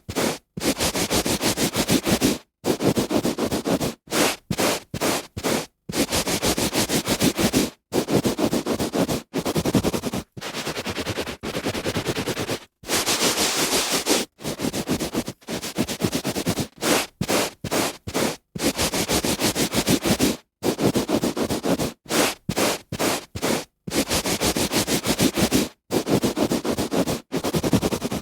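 A hand rubbing on carpet: scratchy friction strokes, some short and some long, with brief breaks between them.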